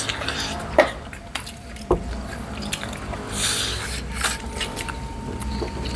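Close-up eating sounds of spicy braised chicken feet: wet smacks, sucking and small clicks as the meat is chewed off the bones, with a brief hiss a little past the middle.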